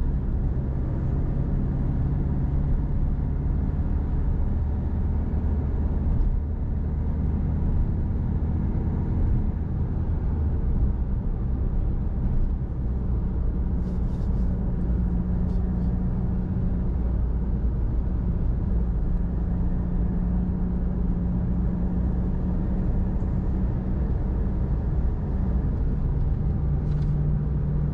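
A car driving along: steady engine hum with road and tyre noise, heard from inside the cabin. A few faint high clicks come about halfway through and again near the end.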